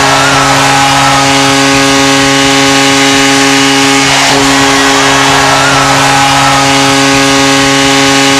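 Hockey arena goal horn sounding one long, loud, steady blast with a deep pitch, signalling a goal.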